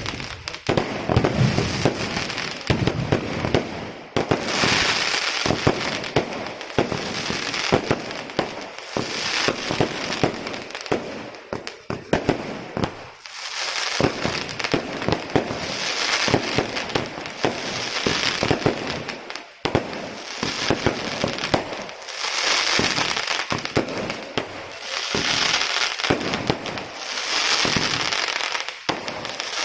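Aerial fireworks display: a continuous run of sharp bangs and dense crackling, with waves of high crackle swelling every two to three seconds.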